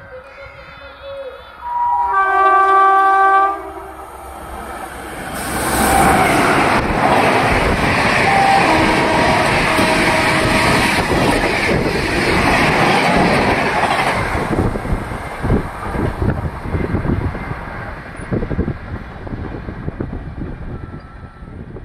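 A WAP-5 electric locomotive's horn gives a long blast about two seconds in. The Shatabdi Express then rushes past non-stop at speed with a loud roar of wheels and air. The roar turns into a fading rhythmic clatter of LHB coach wheels over rail joints as the last coaches go by.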